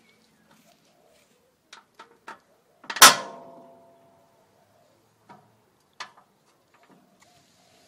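Steel folding frame of a Mad Dog collapsible cement mixer locking into place with one loud metal clank about three seconds in, ringing briefly, as its spring-loaded latch engages. Lighter metal clicks come before and after as the hinge and latch are handled.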